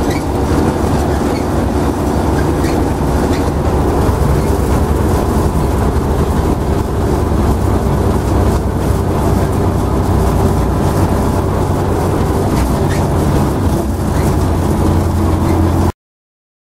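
Zetor tractor's diesel engine running steadily under way, heard from the cab with the rattle of the tractor and trailer on the road. It cuts off suddenly near the end.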